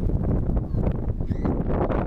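Wind buffeting the microphone in gusts, a loud low rumble.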